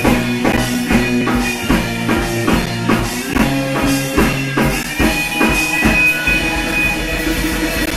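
Live rock band playing: electric guitar, bass and drum kit with a steady beat. A long high note is held from about five seconds in.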